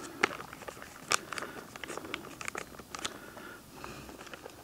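Thin plastic food packet crinkling and crackling as it is handled and opened, a quick run of sharp crackles for about three seconds that then thins out as its diced contents are tipped into the pot.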